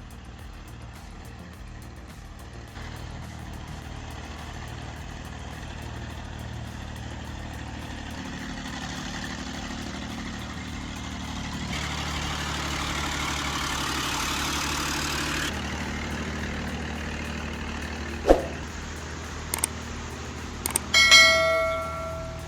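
Heavy machine's diesel engine running steadily, louder for a few seconds midway. A sharp knock comes about three-quarters through, and a short ringing metallic tone near the end.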